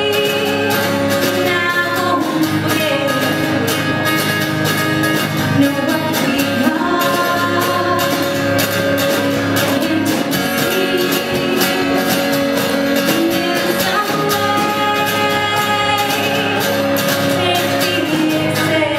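Live amplified music: a woman singing over a strummed acoustic guitar, with long held notes.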